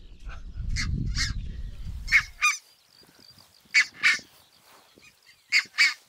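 Red-breasted geese giving shrill double calls, three pairs of short honks a second or two apart, with fainter calls early on. Under the first calls is a low rumble that cuts off suddenly about two and a half seconds in.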